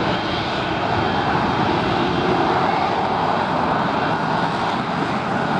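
Lockheed Martin F-35B's F135 jet engine and shaft-driven lift fan holding the jet in a hover, a loud, steady jet noise that stays even throughout.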